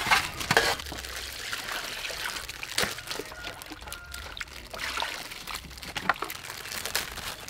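Water splashing and sloshing in a steel bowl as raw octopus is put in and rubbed clean by hand, with a burst of splashes about a second in.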